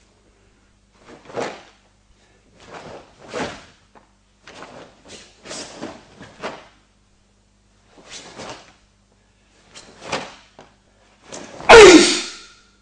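A karateka's gi snapping and bare feet striking and sliding on the mat with each technique of the Kushanku kata, short sharp sounds every second or two. Near the end comes the loudest sound, a short kiai shout that falls in pitch.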